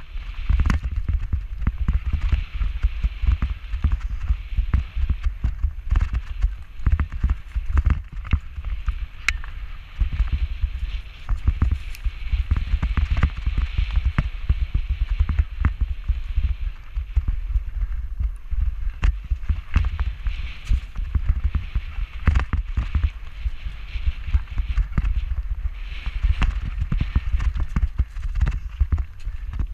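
Mountain bike rattling and knocking as it rolls fast down a rough dirt-and-gravel trail, a dense, continuous clatter over a heavy rumble of wind buffeting the handlebar-mounted microphone.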